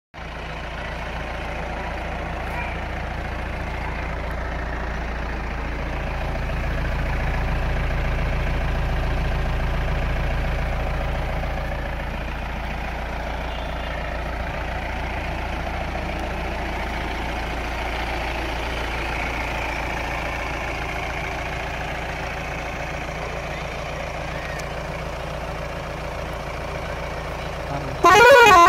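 Mahindra Bolero Pickup's diesel engine idling steadily. Near the end, a short, loud blast from its Roots hexa-tone air horn cuts in.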